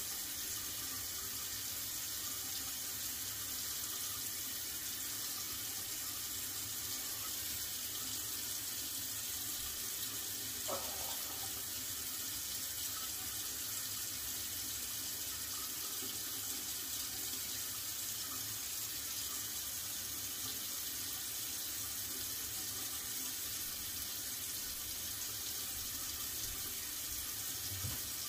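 Tap running steadily into a bathroom sink.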